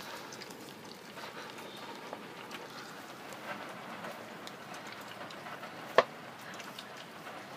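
Wet chewing and licking as a kitten and a Great Dane eat meat off a ham bone, a steady crackle of small smacks and ticks, with one sharp click about six seconds in.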